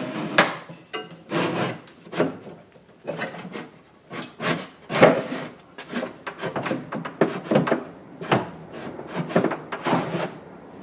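Mulching plug being pushed and worked down into a ride-on mower's grass chute: irregular knocks, scrapes and rubbing as it is fitted.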